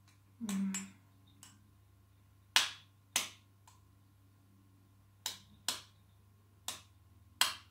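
Metal fork tapping the shell of a raw egg to crack it, six sharp clicks spaced loosely in pairs.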